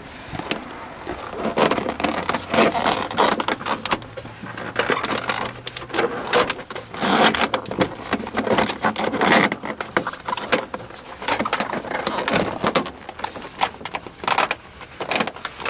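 Irregular rustling, crinkling and soft knocks as the Mazda Miata's vinyl soft top and its rubber rear rail are pushed and worked by hand down onto the mounting studs.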